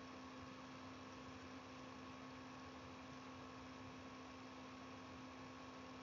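Near silence: a faint, steady electrical hum over a low hiss.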